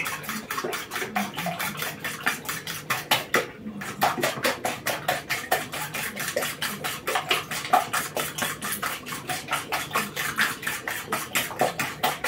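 A spoon beating raw eggs in a plastic bowl: quick, even strokes, several a second, each with a light clack against the bowl, pausing briefly about three and a half seconds in.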